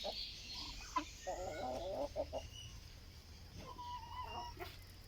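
Chickens clucking: a quick run of calls just over a second in, then scattered higher calls, with a couple of sharp clicks.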